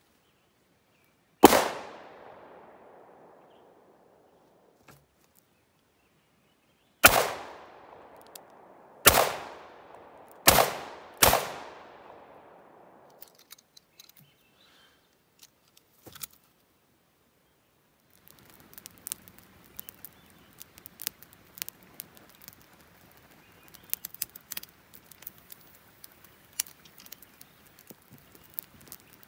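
Five revolver shots, each trailing off in a long echo: one about a second and a half in, then four more a few seconds later, the last three in quick succession. From about two-thirds of the way in, a campfire crackling and popping.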